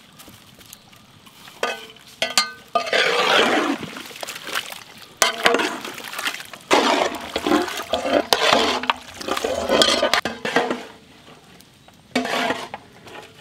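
Thick mutton masala being stirred in a large metal cooking pot with a long-handled paddle: wet, churning strokes in irregular bursts, with a few knocks near the start.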